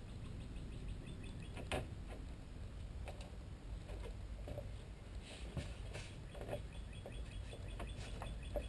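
Aviation snips cutting thin aluminum sheet by hand: irregular metallic snips and crunches of the blades closing, with small chirpy squeaks, the sharpest cut about two seconds in.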